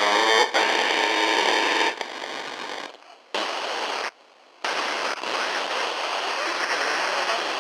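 Radio static: a hiss with a brief warbling tone at the start. It drops out for a moment about three seconds in and again just after four seconds, then hisses steadily.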